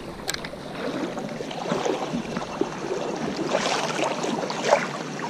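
Water of a small stream running: an uneven rushing noise with small irregular crackles.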